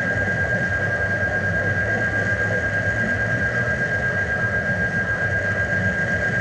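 Steady mechanical drone: a constant low hum with a thin, steady high whine over it, unchanging throughout.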